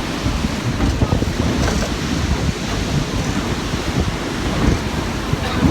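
Steady roar of rushing water from the Rhine Falls, with wind buffeting the microphone in heavy low rumbles.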